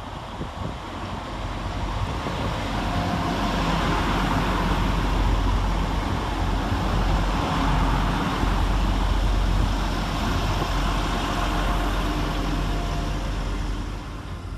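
A train's engines running at the platform: the sound builds over the first couple of seconds to a steady, loud drone with a low engine note, then eases off near the end.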